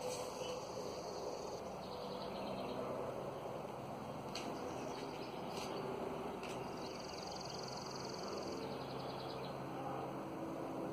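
A small songbird's high, rapid trill, heard twice for about two seconds each, at the start and again about seven seconds in, over a steady low hum.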